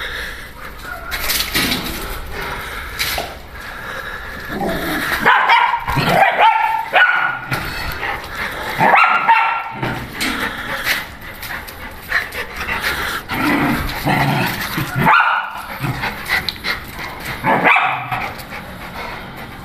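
Two dogs at play, a pit bull and a small shaggy mixed-breed, barking and yipping in several separate bouts.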